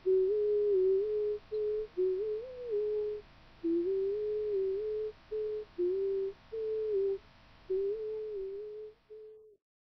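A simple electronic melody in a single pure, sine-like tone, played in short phrases of a few notes with brief gaps between them; it stops abruptly near the end.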